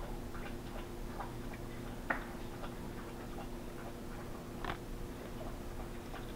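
Trading cards and foil card packs being handled on a table: faint, scattered light clicks and taps, with two sharper clicks about two seconds in and near five seconds, over a steady low hum.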